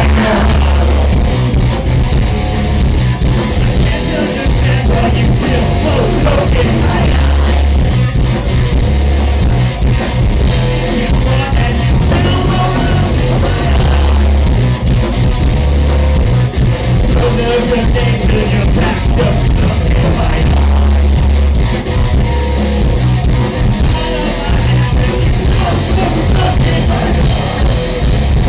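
Live rock band playing loudly: distorted electric guitars over a drum kit, with a singer at times.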